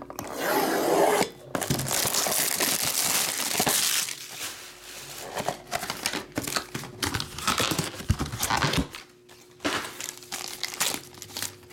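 Plastic shrink-wrap on a trading-card box being cut and torn off, with loud continuous crinkling for about the first four seconds. After that come lighter, scattered crinkles and clicks as the box is opened and a plastic sleeve holding the card is handled.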